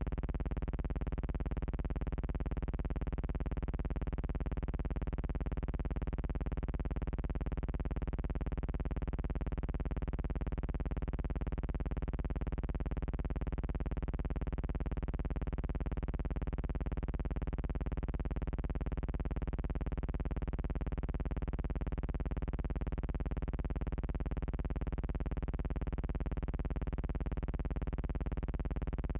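A steady buzzing hum with many overtones that does not change at all: a constant drone on the soundtrack, not the sound of rushing water.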